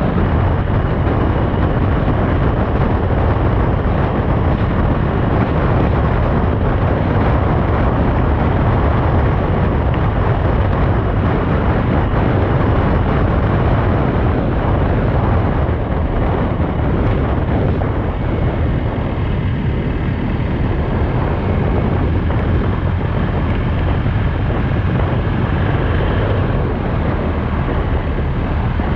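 Steady wind rush and road noise from a motorcycle riding at an even speed, heard through a bike-mounted action camera, with a heavy low rumble underneath.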